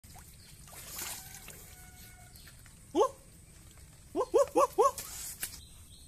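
A shallow stream trickling faintly, with an animal call about three seconds in, a short rising note, followed by four quick rising-and-falling calls in a row just after four seconds; the calls are the loudest sound.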